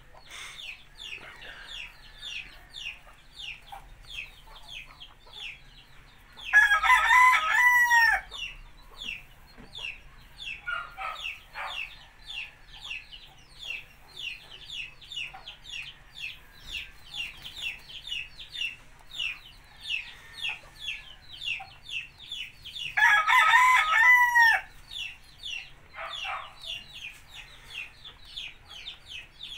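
A rooster crows twice, about sixteen seconds apart, each crow about a second and a half long and falling in pitch at its end. Under it runs a steady patter of short, high clicks, several a second.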